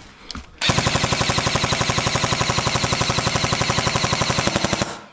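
Airsoft rifle firing one long full-auto burst: a rapid, even clatter of over a dozen shots a second, starting abruptly just under a second in and stopping sharply about four seconds later.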